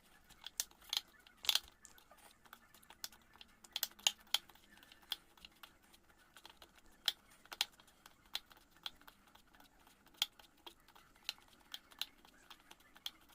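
Hands kneading soft wheat-flour dough: faint, irregular sticky clicks and slaps as the dough is pressed and folded.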